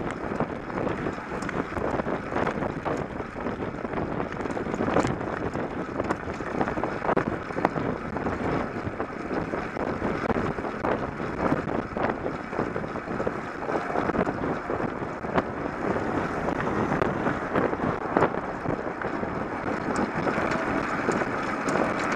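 Wind buffeting the microphone and steady road rumble from a camera riding low on a moving cycle in traffic, with frequent small knocks from bumps in the road surface.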